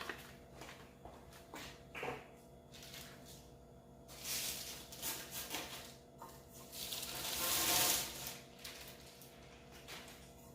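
Packing material from a flat-packed stainless steel table being handled and pulled off: a few light knocks, then two bouts of rustling and crinkling about four and seven seconds in, the second louder.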